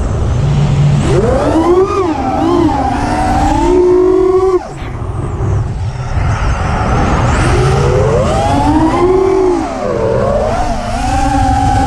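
Mini FPV quadcopter's brushless motors and propellers whining, the pitch swooping up and down with throttle. The whine drops sharply about four and a half seconds in, climbs again a few seconds later, and runs on under a heavy low rumble. The quad is flying with a bad motor.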